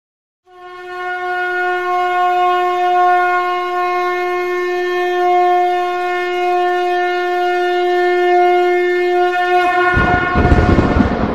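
A conch shell (shankha) blown in one long, unwavering note lasting about nine seconds. As the note ends, a loud, rough rumbling noise breaks in.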